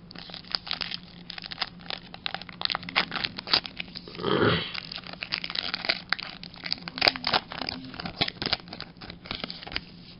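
Crinkling and crackling of foil booster-pack wrappers and trading cards being handled, with one longer rustle about four seconds in.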